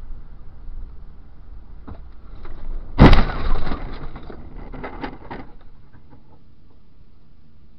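Car collision heard from inside the camera car. Over low road noise, a sudden loud crash about three seconds in as it strikes the side of an SUV, hard enough to set off that car's side airbags. About two seconds of crunching and clattering follow, then a low steady hum.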